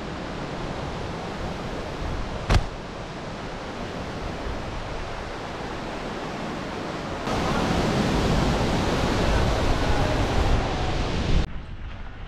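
Steady rushing of river rapids, getting louder for a few seconds past the middle and dropping off suddenly near the end. A single sharp knock comes about two and a half seconds in.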